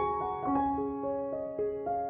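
Background piano music: a slow melody of single notes, each struck and left to ring into the next.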